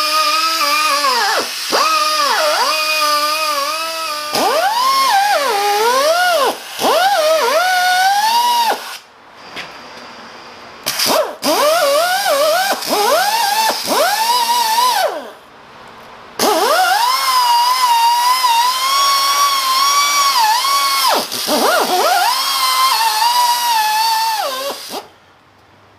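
Pneumatic air grinder running against the rusty surface and T-slots of a cast iron lathe faceplate. Its high whine sags in pitch each time it is pressed into the metal and climbs back as the load eases. It drops away briefly twice, about 9 and 15 seconds in, and stops shortly before the end.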